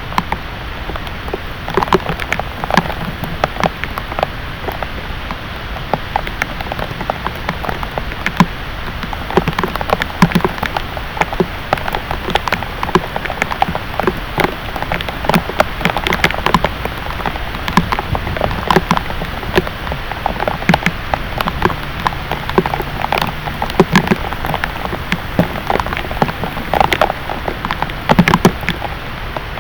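Heavy thunderstorm rain falling steadily, with many sharp, irregular drop hits on a nearby surface.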